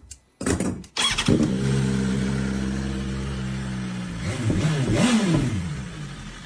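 Car engine starting up about a second in and idling steadily, then revved up and down a few times near the end.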